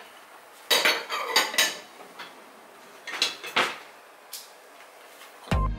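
Dishes and cutlery clinking and clattering in short bunches as a dishwasher is loaded or unloaded, with quiet gaps in between. Music with a beat starts near the end.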